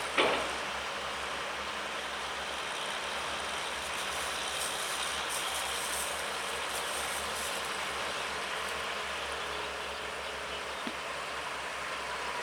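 Sumitomo SH210 long-reach excavator running steadily as it digs, with one sharp knock just after the start.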